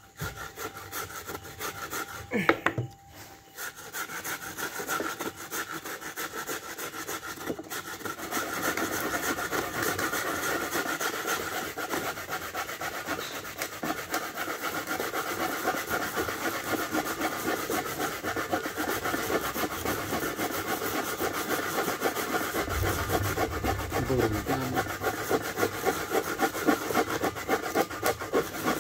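Coconut being grated by hand on a wooden grater board: a fast, continuous rasping scrape of repeated strokes that settles into a steady rhythm after a short pause near the start.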